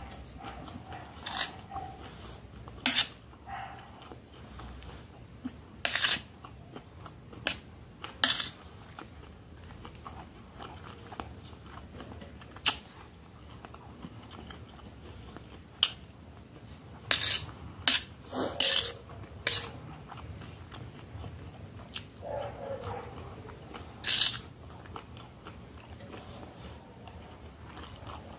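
Close-miked eating: chewing of rice, beans and fried cassava, with a scattering of sharp, irregular clicks and scrapes as a metal fork meets the metal plate.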